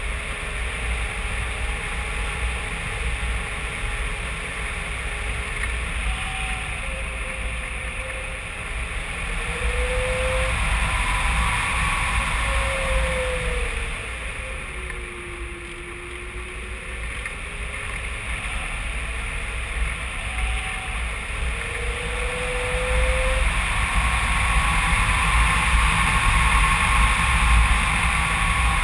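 Airflow rushing over a GoPro camera on a HobbyKing Phoenix 2 m RC glider in flight. There is a deep buffeting rumble and faint whistling tones that slide up and down in pitch. The noise swells and fades with the flight and is loudest near the end.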